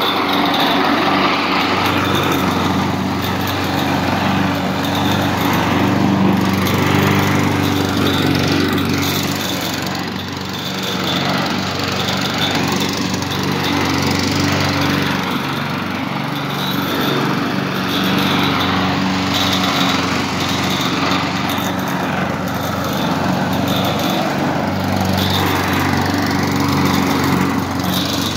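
Honda walk-behind lawn mower's single-cylinder four-stroke engine running steadily at mowing speed while it is pushed through grass, the blade cutting. The pitch holds constant, with small dips in level now and then.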